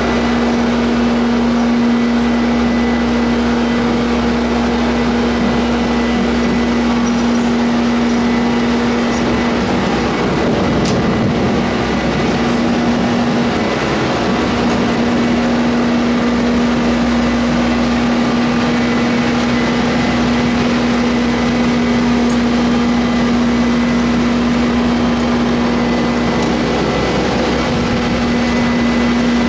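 Bobcat compact track loader's diesel engine running steadily with a constant hum as the machine carries a load of big square hay bales up a ramp onto a trailer. The hum turns rougher for a few seconds about ten seconds in.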